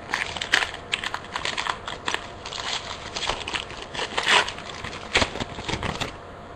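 Trading cards and their pack wrappers being handled close up: a quick, irregular run of clicks and crinkling as cards are pulled and shuffled through, stopping about six seconds in.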